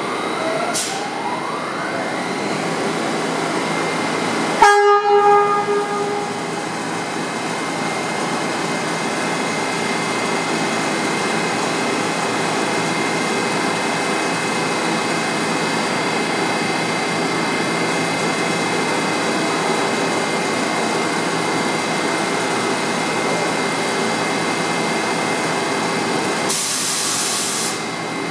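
R68 subway train standing at the platform, its onboard equipment humming steadily with a thin high whine as it charges up. About four and a half seconds in comes one short, loud horn blast, and near the end a brief burst of air hiss.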